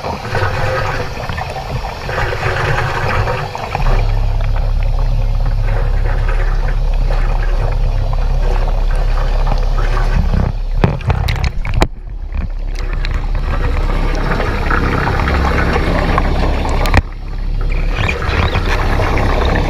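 Underwater running of a mini submarine, heard through the camera's waterproof housing: a steady low hum with rushing water and streams of bubbles. The sound dips and crackles briefly about ten to twelve seconds in and again near seventeen seconds.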